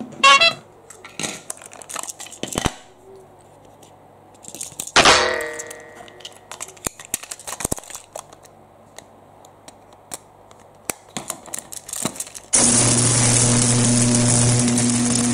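Scattered clicks and knocks of plastic toy pieces, with one louder ringing knock about five seconds in. Near the end a battery-powered Plarail toy train starts running, a loud, steady whir.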